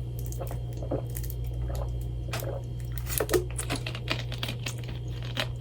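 Close-miked mukbang eating sounds: scattered small clicks, crinkles and squishes of food being handled and chewed, over a steady low hum.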